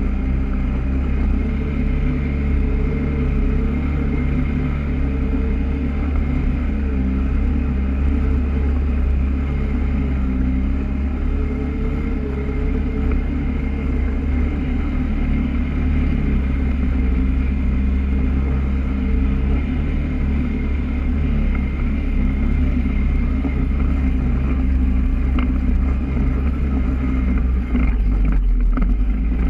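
Polaris ATV engine running steadily as the quad drives over rough grassy ground, its pitch wavering a little with the throttle and briefly dipping near the end.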